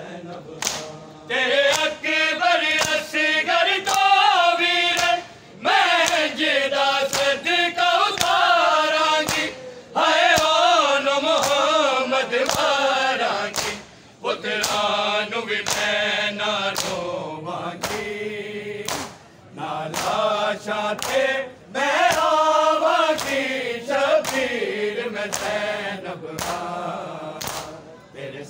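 A crowd of men chanting a noha, a Shia lament, punctuated by sharp slaps of hands beating on bare chests (matam) in a rough rhythm.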